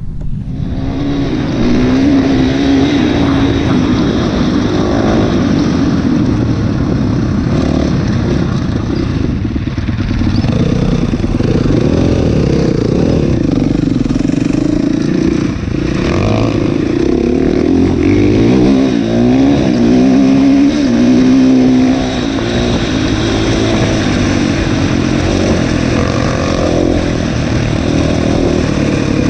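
KTM dirt bike engine on the move, revving up and down repeatedly as the bike rides across a rough field. It starts quieter, then gets loud about a second in as the bike gets going.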